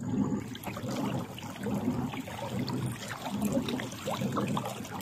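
Pedal-drive fishing kayak under way: water gurgling and splashing along the hull, with a low churning that swells about twice a second in time with the pedal strokes, and scattered light clicks.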